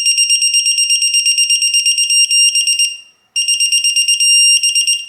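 Quinn electronic torque wrench's beeper sounding as a bolt is tightened to its 20 ft-lb setting: two pulls, each a fast, high beeping of about eight beeps a second that briefly runs into a steady tone, the wrench's signal that the set torque is reached.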